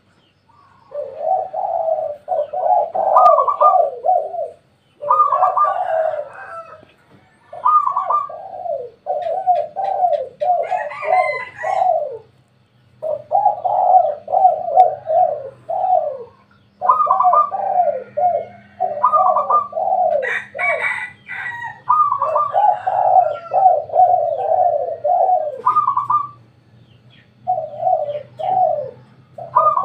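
Spotted doves cooing, phrase after phrase, with short gaps of about a second between runs.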